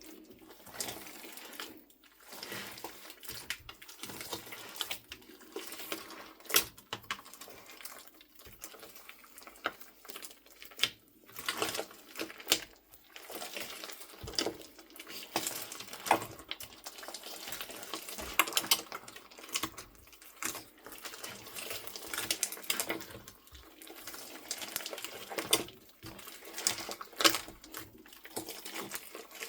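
Slime being mixed with soft clay by hand, squeezed and pressed so that it gives off a dense, irregular run of sticky clicks and crackles.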